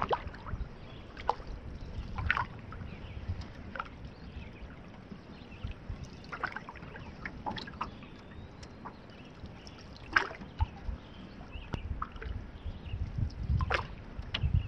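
Canoe paddling: paddle strokes with water trickling and sloshing, and short, light knocks and splashes every second or few seconds over a low rumble.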